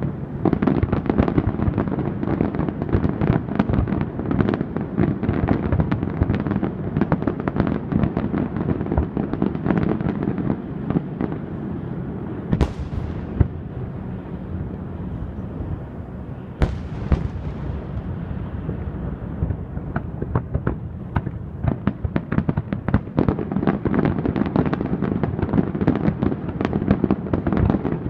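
Aerial fireworks display: a dense, continuous barrage of shell bursts and rumbling booms. Two sharper, louder cracks about 12 and 16 seconds in ring away. The barrage thins in the middle and builds again toward the end.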